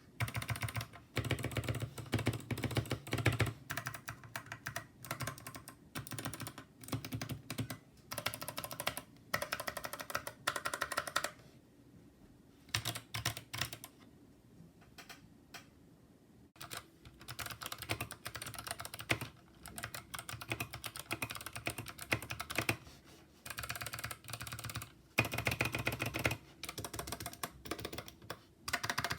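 Typing on a mechanical keyboard fitted with PBT keycaps: quick runs of key clacks, with a pause of a few seconds about halfway through.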